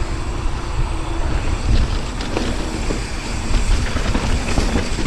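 Wind buffeting the microphone and a mountain bike's tyres rolling over a dirt trail on a fast descent, a steady low rumble with scattered rattles and knocks in the second half.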